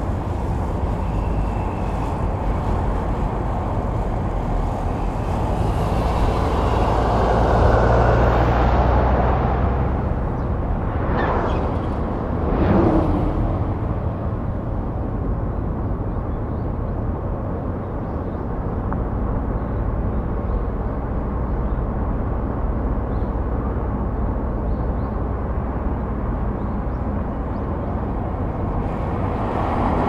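Steady rumble of a car driving along a road, engine and tyre noise. It swells louder around eight seconds in and again sharply around twelve seconds in, as other traffic passes.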